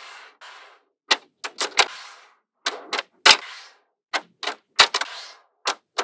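Magnetic balls clicking as rows of balls snap together into a flat panel: about a dozen sharp, irregularly spaced clicks, several followed by a brief rattle of balls settling against each other.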